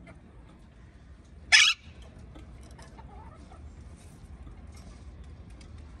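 Alexandrine parakeet giving one short, harsh squawk about a second and a half in, followed only by faint scattered chirps and ticks over a low steady hum.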